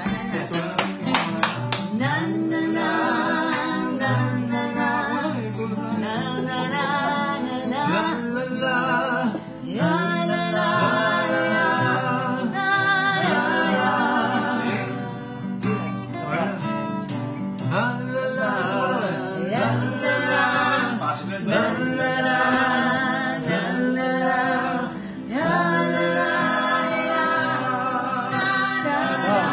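Casual singing to a strummed acoustic guitar: voices carry a song's melody over steady chord strumming, with sharp strums at the very start.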